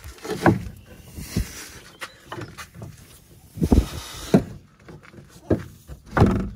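Saab XWD front axle (CV driveshaft) being tugged and worked free by hand: a series of irregular metal clunks and knocks with scraping between them as the shaft is pulled out.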